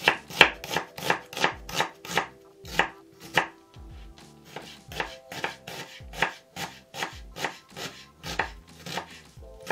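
A ceramic kitchen knife chopping an onion on a wooden cutting board: the blade knocks against the board in a steady series of cuts, about three a second. There is a short pause a little before four seconds in.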